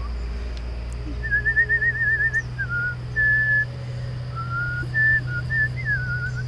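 A person whistling a tune in several short phrases, some notes trilled with a quick wavering warble and others held steady.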